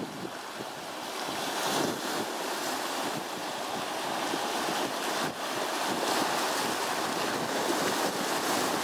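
Choppy Lake Ontario waves washing and breaking over a rocky shore and sand beach, a steady surf wash, with wind across the microphone.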